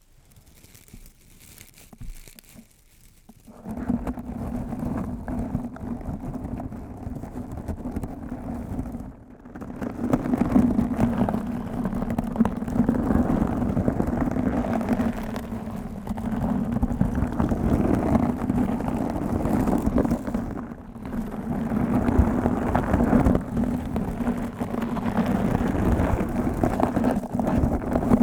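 Aggressive mic scratching: fingers scratching and rubbing directly on a microphone, a dense, rapid, rough scratching with a low rumble. It starts a few seconds in and stops briefly twice.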